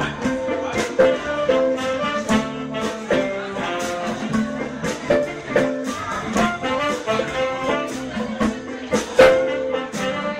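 Live funk band playing an instrumental passage: a horn section holds sustained notes over electric guitar, with drums keeping a steady beat.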